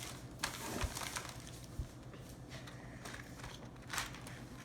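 Crinkling and crackling of an opened Oreo cookie packet's plastic wrapper and tray as the cookies are handled, in short irregular crackles and clicks.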